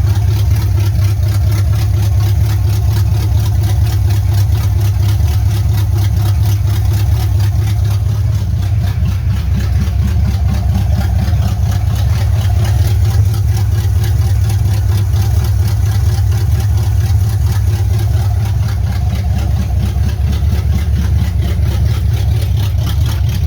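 Chevy 305 small-block V8 idling steadily and loud, exhausting through freshly installed headers with no mufflers fitted.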